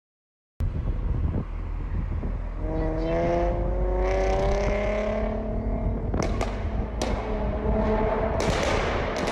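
Car engine pulling hard, its pitch rising steadily for a few seconds over a deep exhaust rumble, then a series of sharp pops and cracks near the end.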